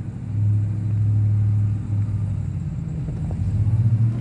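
Ram TRX's supercharged 6.2-litre V8 pulling under load as the truck climbs a rough hill in four-wheel drive: a steady low drone that eases off around the middle and builds again near the end.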